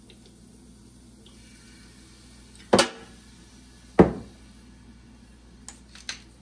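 Two sharp knocks of things being set down on a kitchen counter, about three and four seconds in. Near the end a run of quick, short clicks starts, from a wooden salt or pepper mill being ground over the potatoes.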